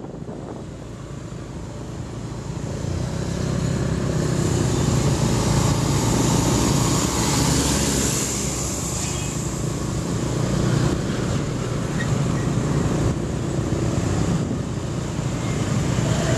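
Road traffic heard while riding along a highway: engine rumble, tyre and wind noise. It grows louder a few seconds in and peaks as a large truck passes close alongside.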